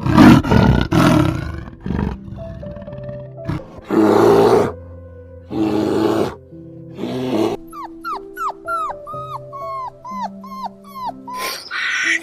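An animal roaring or growling in several loud, rough bursts through the first half, then a quick run of about nine short chirps that each fall in pitch. Background music runs under it all.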